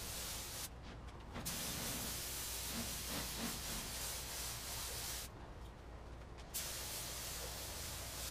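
Compressed-air paint spray gun hissing as it sprays clear coat onto a pickup's body. The spray stops twice, for about a second each time, as the trigger is let go.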